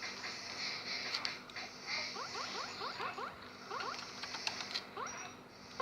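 A sticky homemade squishy being squeezed and rubbed in the hands: a soft rustle with quick runs of short rising squeaks from about two seconds in.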